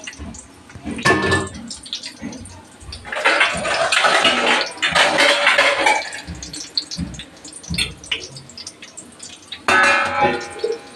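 Gram-flour sev dough frying in hot oil in a wok, the oil sizzling and bubbling in two long loud bursts, the first about three seconds in and the second near the end. Metal utensils clank against the pans about a second in.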